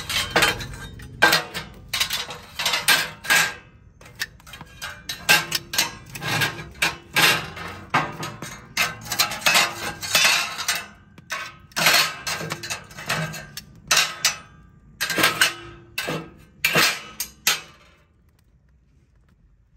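Metal tongs clanking against GrillGrates grill-grate panels as the panels are lifted, shifted and set down in the firebox: a quick, irregular run of metallic clanks and clinks that stops near the end.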